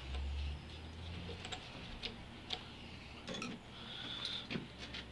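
A few light metallic clicks and ticks, irregularly spaced, as steel puller bolts and a rod are handled and fitted into an engine's crankshaft pulley, with a brief low hum at the start.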